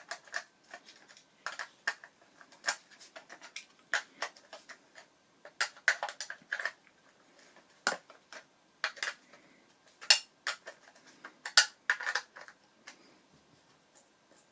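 Irregular sharp clicks and knocks of skate hardware being handled and fitted as new wheels and bearings go onto a Freeline skate.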